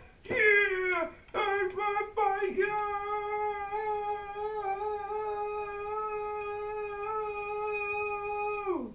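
A high voice gives three short cries that fall in pitch, then holds one long, steady wordless note for about six seconds before it drops away at the end.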